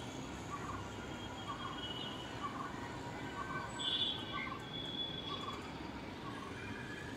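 Outdoor city ambience: a steady low background hum with birds calling over it. A soft call repeats about once or twice a second, and a few higher whistled notes come in, the loudest about four seconds in.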